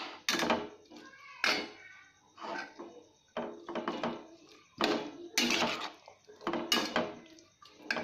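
Steel spatula scraping and clattering against a kadhai, stirring and tossing a thick mix of vegetables and spices, in a string of irregular strokes about once a second.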